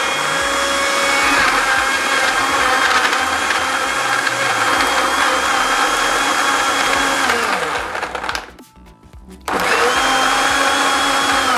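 Countertop blender motor running steadily, puréeing peppers and onion with water into a smooth liquid. About eight seconds in it winds down and stops, and about a second later it starts up again.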